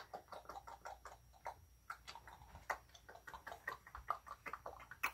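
A person making a rapid run of mouth clicks and clucks, about five a second, imitating the clicking chatter of the Predator alien.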